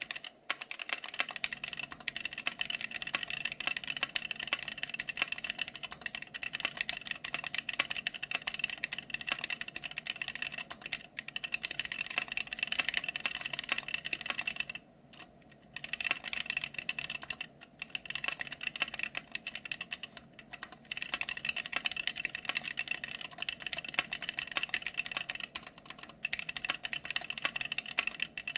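Fast, continuous typing on a mechanical keyboard with Gateron Clear linear switches: a dense clatter of keystrokes with a few short pauses, the longest about halfway through.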